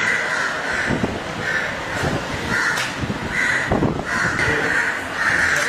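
Crows cawing over and over: about seven harsh caws, some short and some drawn out to nearly a second.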